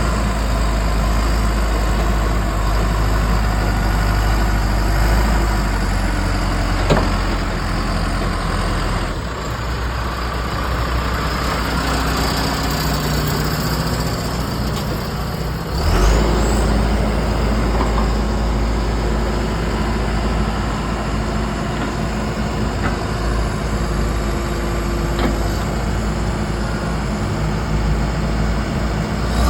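Diesel engine of a John Deere 310J loader backhoe running as the machine works. There is a sharp knock about 7 seconds in, the engine note drops about 9 seconds in, and it picks up again suddenly and louder about 16 seconds in.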